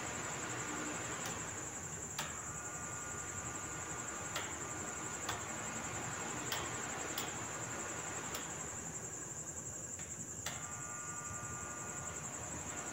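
20-inch electric floor fan running after its blown fuse was replaced, giving a steady rush of air. Over it runs a steady high-pitched trill, with a few soft clicks at irregular intervals.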